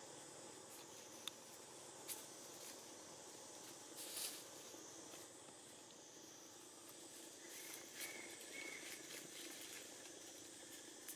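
Faint outdoor background with a few soft clicks and rustles in dry leaf litter. The loudest is a brief rustle about four seconds in.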